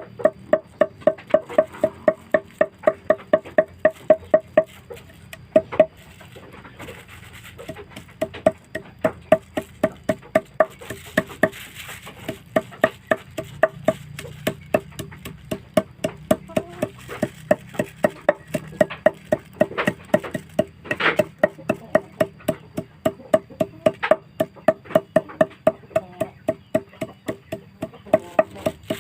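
Steady, rhythmic knocks with a wooden ring, about three to four strokes a second, from herbal remedy ingredients being prepared by hand on a board. The strokes pause briefly around five and seven seconds in, and one sharper hit comes about twenty-one seconds in.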